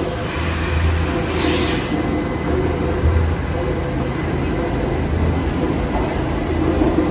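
New York City subway train running on the track with a steady rumble and a pulsing low hum, and a short hiss about a second and a half in.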